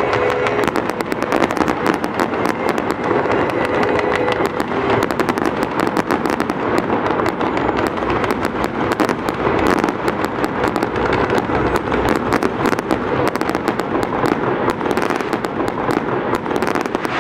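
Fireworks display going off without pause: a dense, rapid run of crackling reports and bangs.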